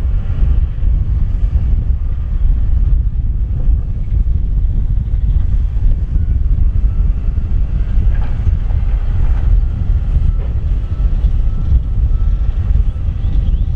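Heavy diesel engines of tipping dump trucks and a wheel loader running, a steady deep rumble.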